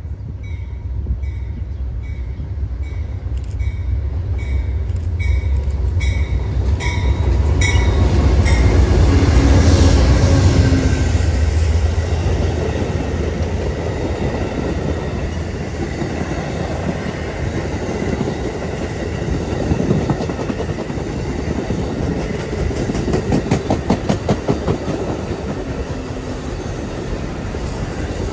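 Amtrak passenger train cars rolling past close by: a heavy, steady rumble of steel wheels on the rails, loudest about ten seconds in, with quick clicking of wheels over rail joints later on.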